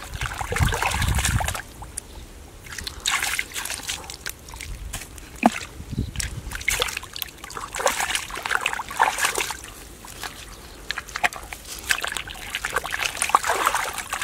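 Hands digging and scooping through wet mud and shallow muddy water: irregular sloshing and small splashes, with water trickling back.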